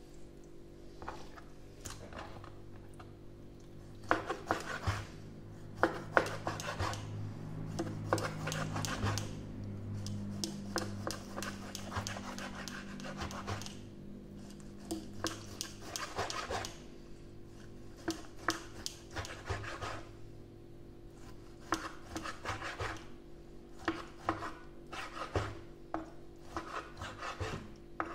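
Chef's knife slicing raw chicken breast on a plastic cutting board: repeated runs of short strokes as the blade scrapes and taps the board, over a steady low hum.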